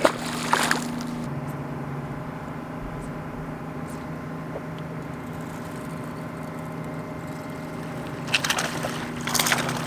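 Steady hum of a bass boat's electric trolling motor, its pitch stepping down about a second in, with two sharp knocks at the start. Near the end a hooked bass splashes at the surface twice.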